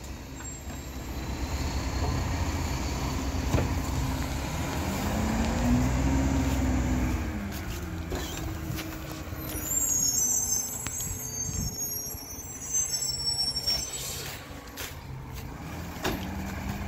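Mack GU garbage truck's diesel engine running as the truck pulls away, its pitch rising and then falling a few seconds in. About ten seconds in comes a high brake squeal as it slows, with a few sharp knocks from the truck scattered through.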